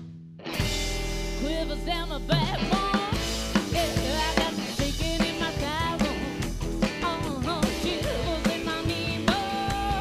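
Live rockabilly band playing: a woman singing lead over acoustic guitar, electric guitar, upright bass and drums. The music cuts in about half a second in, and the singing starts a second or so later.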